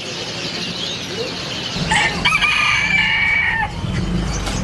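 A rooster crowing once, starting about two seconds in and lasting nearly two seconds, over the chirping of many small caged birds.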